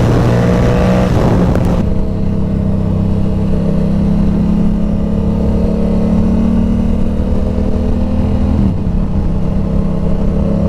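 Sport motorcycle's inline-four engine running at steady highway speed with wind rush on the microphone. The wind noise drops away about two seconds in, leaving a steady engine drone that shifts slightly near the end and starts to rise.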